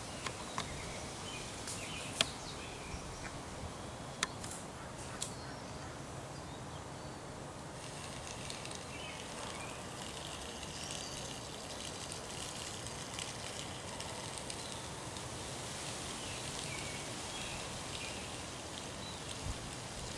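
Outdoor ambience: a steady background hiss with a few sharp clicks in the first five seconds, and faint bird chirps from about eight seconds in.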